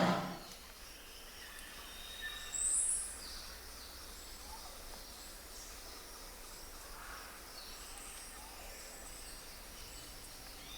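The end of a Bengal tiger's roar dies away at the very start, leaving faint wild-forest ambience with a steady insect hum and a few short bird calls, the loudest a high chirp about three seconds in.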